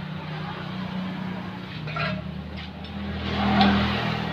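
A motor vehicle's engine running, growing louder to a peak about three and a half seconds in, then easing off.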